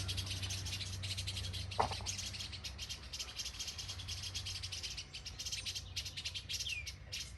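Small songbirds giving agitated alarm calls: a rapid, continuous chipping with two downward-sliding calls near the end and one brief louder note about two seconds in. These are the parent birds' distress calls as a small black snake closes in on their nest of hatchlings.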